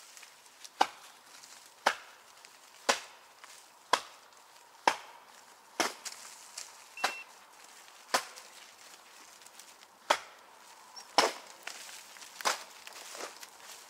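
Sharp wooden knocks on a tree trunk, about one a second, each ringing briefly through the forest: blows struck against the tree to drive a marten out of its hollow.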